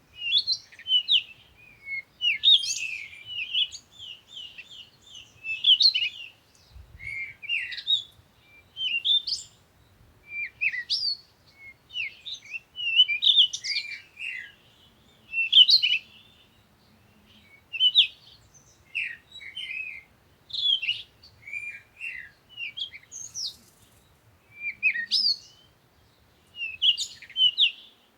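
Birds chirping: quick runs of short, high chirps and downward-sliding notes, one phrase after another every second or two with brief pauses between.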